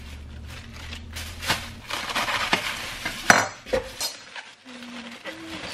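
Plastic produce bags rustling and crinkling as lettuce and green peppers are unwrapped and handled on a kitchen counter, with scattered clicks and a sharp clink about three seconds in.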